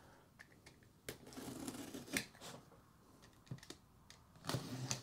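Scattered clicks and rustles of a boxed collectible figure's cardboard box and plastic packaging being handled and opened by hand, about five sharp clicks spread irregularly with softer shuffling between.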